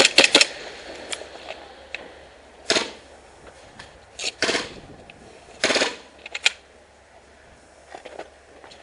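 Airsoft guns firing: a quick string of sharp shots at the start, then scattered single shots and short bursts.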